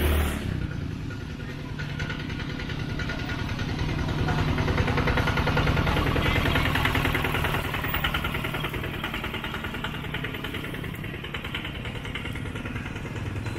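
A small engine running steadily, getting louder a few seconds in and easing off again after about eight seconds.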